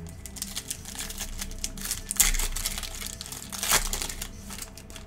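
Foil trading-card pack wrapper crinkling in the hands as the pack is opened, in irregular crackles with two louder crinkles about two seconds and almost four seconds in.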